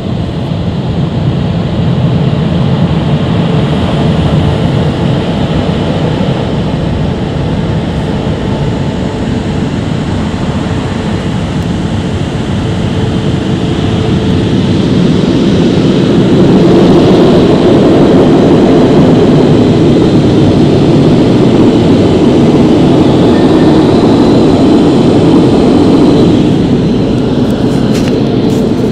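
Automatic car wash gantry's drying blowers running over the car, heard from inside the cabin: a steady, loud rush of air that grows louder about halfway through as the gantry passes overhead.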